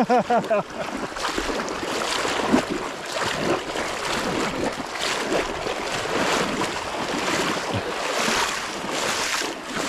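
Sea water sloshing and splashing around legs in waders wading through deep water: a steady churning rush that surges with each stride.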